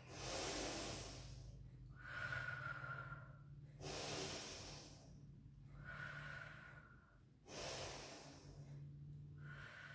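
A woman breathing slowly and deeply while holding a stretch, about three full breaths in and out, some carrying a faint whistle.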